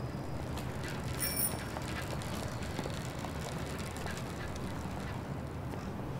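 Street ambience: a steady low rumble of traffic with scattered faint clicks and steps, and a short bright ring a little over a second in.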